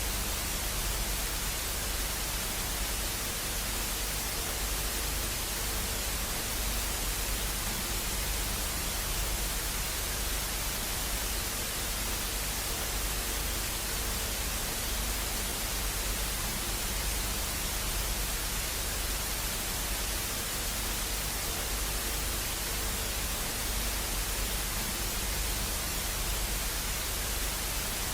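Steady static hiss, even and unchanging throughout, with a low rumble underneath.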